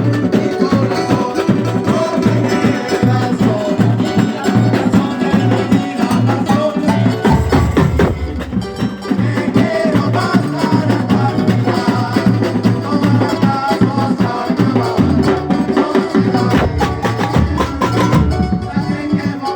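Live band playing a piece: drums and percussion over a moving bass line, with other pitched instruments.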